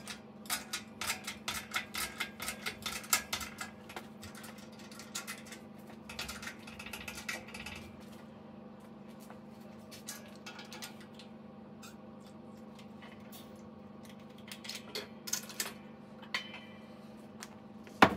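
20-ton hydraulic shop press being worked to press a ball joint into a steel control arm: a fast run of metallic clicks from the bottle-jack pump, then scattered clicks, and a single loud metal knock near the end, over a steady low hum.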